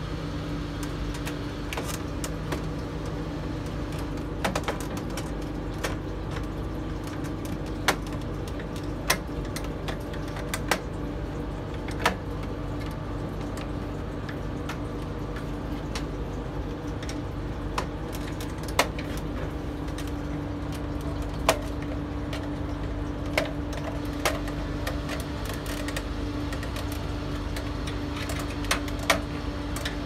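A small screwdriver prying at the plastic clips and inner panel of a microwave oven door, giving scattered sharp clicks and snaps at irregular intervals over a steady background hum.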